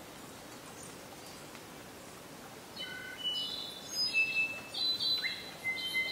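A bird singing a phrase of clear whistled notes at several different pitches, starting about three seconds in, over a steady background hiss.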